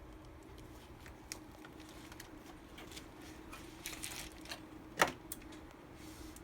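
Scattered light clicks and taps, with one sharper click about five seconds in, over a faint steady hum.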